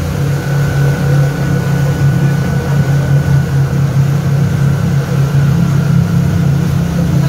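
Motorboat engine running steadily at cruising speed, a low drone, over the rush of the boat's wake.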